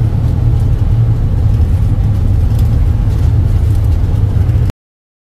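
Steady in-cab road and engine noise from a vehicle driving at cruising speed, a low rumble heard from inside the cabin, cutting off suddenly near the end.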